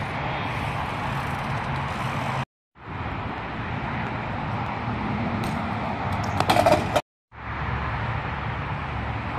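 BMX tyres rolling on concrete with wind on the microphone, a steady rushing noise. It cuts out completely twice, a little after two seconds in and again about seven seconds in. Just before the second cut there is a short, louder clatter of sharp clicks.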